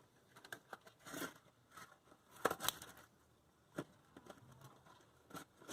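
Scattered light clicks, taps and scrapes of parts and tools being handled during an oil-filter change, with brief rustles about a second in and again near the middle.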